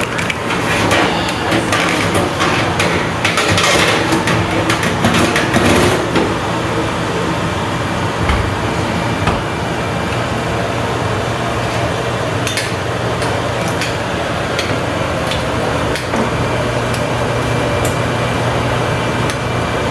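Kitchen cookware clattering and knocking for the first six seconds or so, then a steady hum with scattered clicks.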